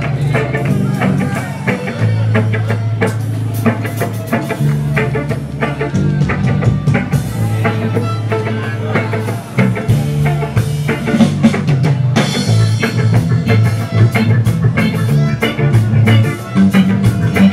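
Live reggae band playing with electric guitars, keyboard and drum kit over a bass line that moves every second or so.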